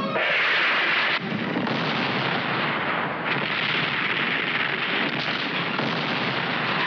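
Film sound effects of explosions: a loud blast comes in suddenly at the start and is followed by a continuous rumbling roar of blasts and fire. There are brief dips about a second in and about three seconds in, where new blasts take over.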